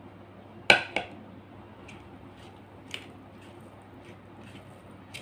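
A glass curry bowl set down on a ceramic plate with two sharp clinks about a second in, followed by soft squishing of fingers mixing rice with fish curry, with a few light clicks.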